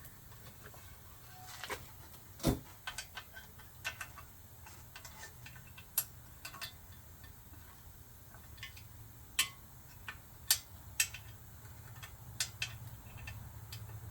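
Irregular light metallic clicks and taps of hand tools being handled on the e-bike's front disc brake, with one heavier knock about two and a half seconds in, over a faint steady low hum.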